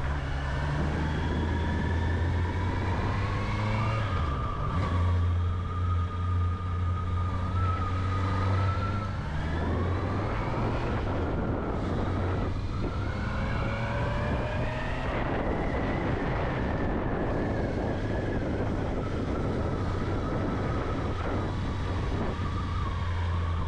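Honda CB650R's inline-four engine running under way, its pitch climbing several times as it accelerates, over steady wind rush.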